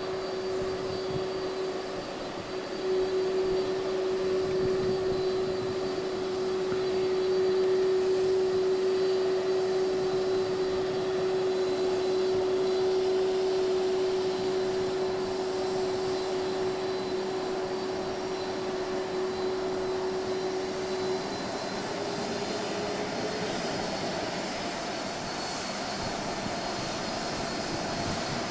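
Boeing 767 freighter's jet engines running, a steady noise with a strong held whine. About three quarters of the way through, the whine ends and shifts slightly higher.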